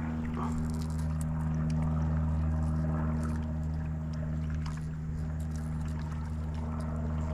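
Steady low electric hum from a small motor on a fishing boat, with light water splashing and small clicks over it.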